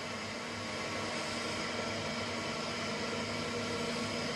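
Crankshaft grinding machine running with a steady hum of many fine tones, turning the crankshaft while its runout is checked with a dial indicator.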